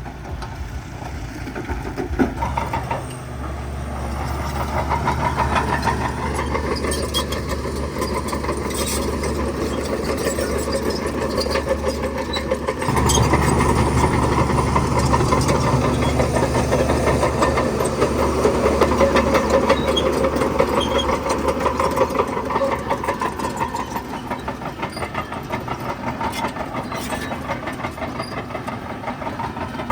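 Diesel engine of heavy construction machinery running steadily, growing louder about a third of the way in.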